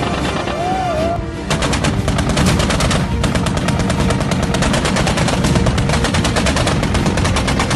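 Rapid automatic gunfire in a long continuous burst, starting about a second and a half in, laid over a music track.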